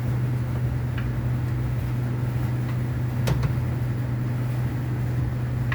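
Steady low hum, with a few light clicks and taps of parts being handled about a second in, past the middle and near the end.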